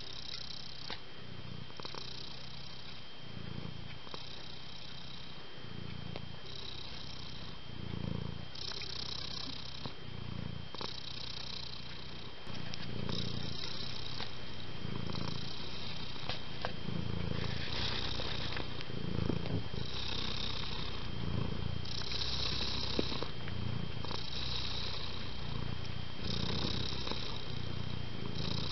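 Domestic cat purring, the rumble swelling and easing in a slow rhythm of about one breath a second, a little louder from about twelve seconds in. A thin steady high tone runs underneath.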